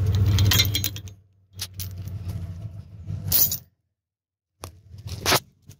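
Steel tow chain and hook clinking and rattling in short bursts as they are handled at the truck hitch, over the low steady hum of a pickup truck's idling engine. The sound cuts out abruptly twice.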